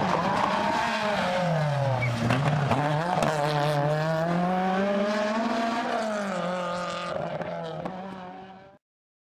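Peugeot 106 rally car's engine revving hard, its pitch dropping about two seconds in as the driver lifts off, then climbing again before it fades away into the distance. The sound cuts off abruptly near the end.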